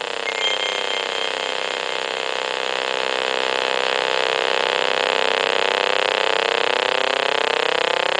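Buzzing electronic drone with a sweeping, phasing sound, its pitch pattern sinking early on, levelling through the middle and sweeping upward near the end. A brief high whistle tone sounds about half a second in.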